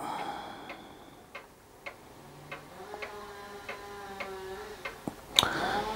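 Quiet, steady clock-like ticking, a little under two ticks a second, with a faint steady hum in the middle.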